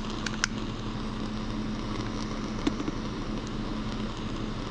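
Steady background hum and hiss with a few light clicks as a butane torch lighter is handled and sparked to heat a thin wire.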